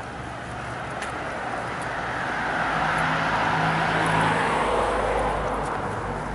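A car driving past on the street, its tyre and engine noise swelling to a peak about four seconds in and then fading away.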